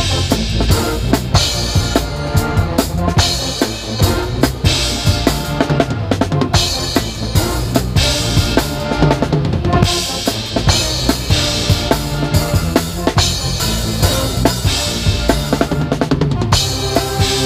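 Drum kit played hard in a pep band: bass drum, snare and Sabian HHX cymbal crashes in a driving, busy beat, with sustained low brass notes underneath.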